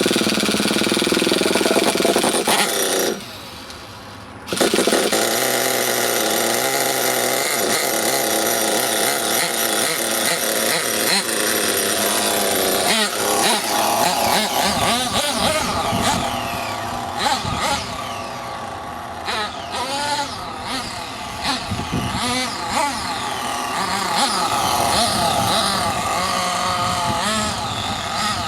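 Small 28 cc engine of an RC monster truck starting up and running, dying after about three seconds, then catching again a second and a half later and running on, revving up and down in the second half.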